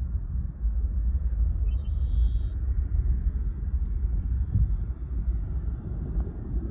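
Deep, steady rumble of a Boeing 737-900ER's two CFM56-7B turbofans at takeoff power, heard from the ground.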